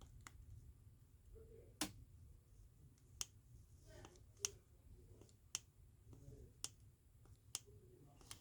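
Near silence broken by sharp little clicks about once a second: the button of a Toyota key fob being pressed again and again to test the remote's signal on a frequency tester.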